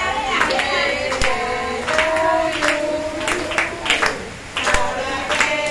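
A group of voices singing together, with hand claps keeping a steady beat.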